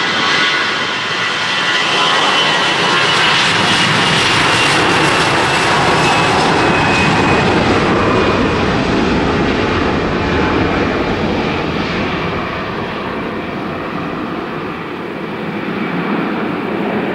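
Airbus A320-family airliner's twin turbofan engines at takeoff thrust during the takeoff roll: a loud jet roar with a whine that slowly falls in pitch as the aircraft passes. The hiss fades in the second half as it moves away.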